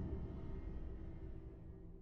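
Background music fading out, its sustained low notes dying away steadily.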